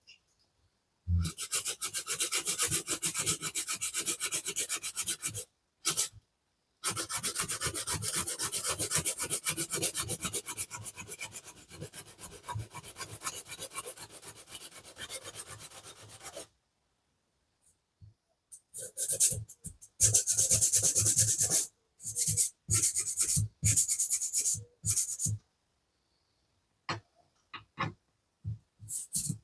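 Hand-abrading a diecast metal model car body to remove casting lines: long runs of fast, rasping rubbing strokes, then shorter broken bursts in the second half.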